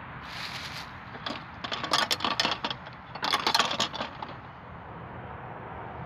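Bicycle rolling with a steady hiss; about a second in, rapid, irregular clicking and crackling comes in two bursts of about a second each, then dies away.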